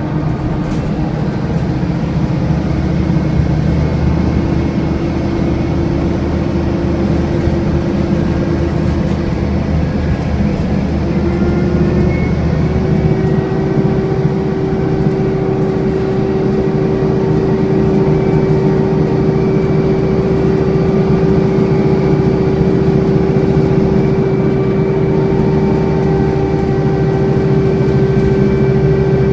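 Scania N230UD bus engine running, with the steady vacuum-cleaner-like whine that enthusiasts call "hoovering". The whine steps up in pitch about halfway through and then holds.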